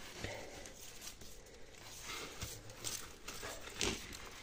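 Gloved hands digging in a pot of loose potting soil: faint rustling and scraping, with a few louder scrapes, the loudest near the end.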